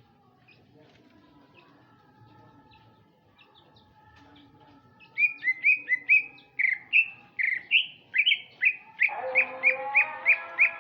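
Male greater green leafbird (cucak ijo) singing a loud run of short, sharp whistled notes, about three a second, starting about halfway through and quickening near the end.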